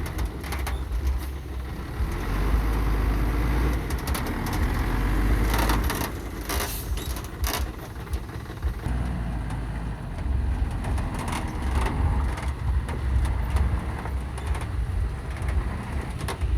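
Construction machinery running with a steady low rumble, with a cluster of sharp knocks and clanks about six to seven and a half seconds in.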